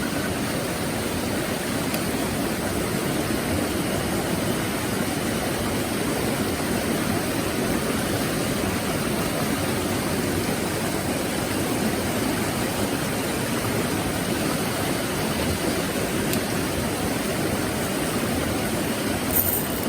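Steady rush of flowing water in a small mountain stream.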